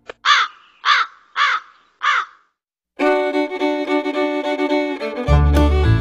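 A bird cawing four times, harsh calls a little over half a second apart. After a brief silence, background music with fiddle begins about halfway through, and a bass beat joins near the end.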